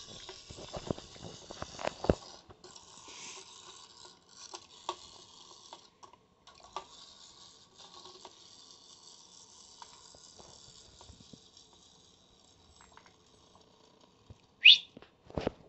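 Clockwork motor of a wind-up toy boat whirring as it drives the boat around a bowl of water, with water churning and splashing and clicks as a puppy mouths the boat. The whir runs down and stops about three-quarters of the way through. Near the end comes a brief, loud, rising high squeak.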